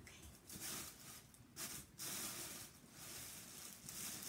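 Tissue-paper wrapping rustling and crinkling as it is handled, in several uneven spells.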